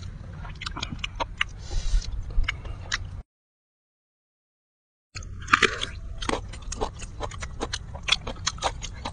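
Close-up eating: chewing with many short wet clicks and smacks of mouths and fingers working beef in chili sambal. The sound cuts out completely for about two seconds a little past the middle, then the chewing goes on.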